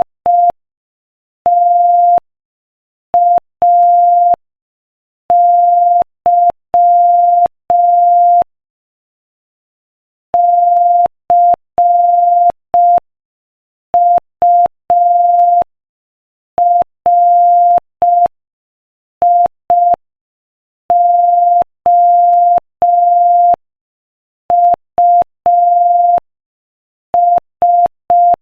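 Morse code sent at 5 words per minute: a single pure beep tone keyed on and off in short dots and long dashes, with longer pauses between letters and words, spelling out a quotation.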